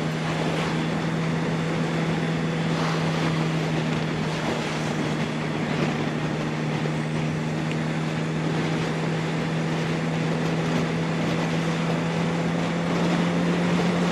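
Yamaha R1's inline-four engine running at steady revs while the bike cruises, with wind rushing over the microphone. The engine note holds one unchanging pitch throughout.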